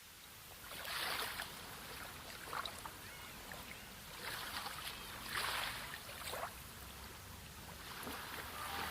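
Small sea waves washing and splashing ashore, each wave swelling in and fading every second or two, the biggest washes about a second in and past the middle.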